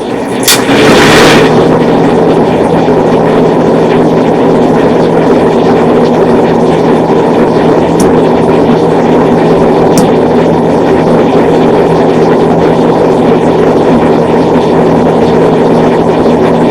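Lasko box fan running on high speed: a click about half a second in as it is switched, then a steady loud whoosh of air from the blades with a low motor hum underneath.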